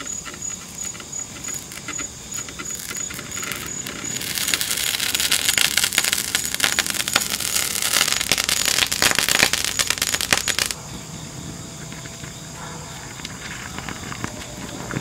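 Molten aluminum crackling and popping in a plaster casting mold, a dense rapid crackle that builds over the first few seconds and then cuts off suddenly about two-thirds through, leaving a quieter crackle. The popping is steam from moisture left in the plaster.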